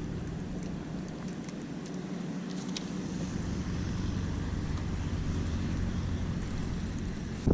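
Low, steady rumble of distant city road traffic, with a few faint ticks about two to three seconds in.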